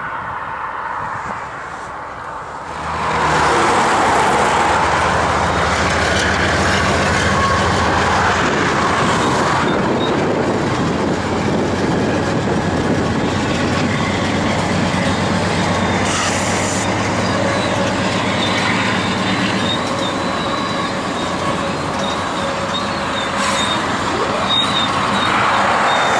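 Freight train led by a CP AC4400CW and a GP20C-ECO diesel locomotive passing close by: the locomotives' diesel engines drone briefly, then the steady rumble of heavily loaded flatcar wheels on the rails, with a thin high wheel squeal now and then.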